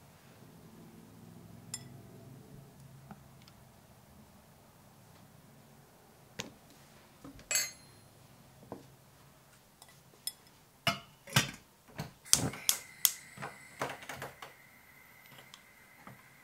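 Kitchen utensils and dishes clinking and tapping: scattered clicks at first, then a quick run of sharp clinks in the second half, leaving a faint ringing tone.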